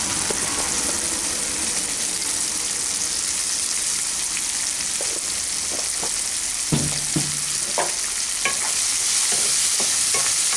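Onion, tomato and green peas sizzling steadily in oil in a nonstick kadai, a continuous frying hiss. Scattered light knocks come in the second half, and a spatula begins stirring through the vegetables near the end.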